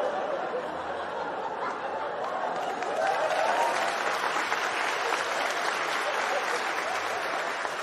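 Stand-up comedy audience applauding, with laughter mixed in; the clapping swells a few seconds in.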